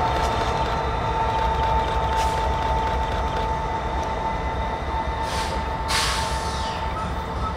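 Norfolk Southern diesel freight locomotive rumbling as it runs away down the track, with a thin, steady high whine throughout.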